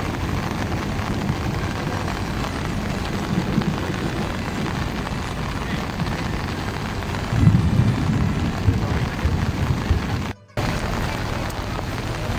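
Storm wind buffeting the microphone over the hiss of heavy rain, with a stronger gust about seven and a half seconds in. The sound cuts out for a moment near the end.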